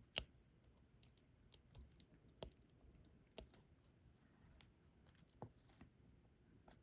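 Faint, irregular small clicks and taps of a diamond painting pen setting resin drills onto the canvas, the sharpest a little after the start and a handful more spread out.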